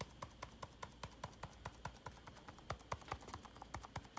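Light, rapid clicking, about seven clicks a second, from a sifter being worked to dust cocoa powder over a glazed cake.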